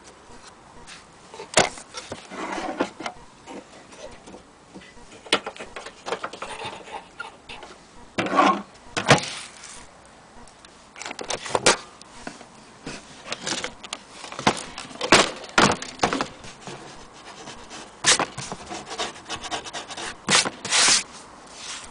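Hands handling the leatherette-covered case of an HMV Model 102 portable gramophone: scattered knocks and clicks with rubbing, and a few short scraping stretches, about two seconds in, around eight seconds in and near the end.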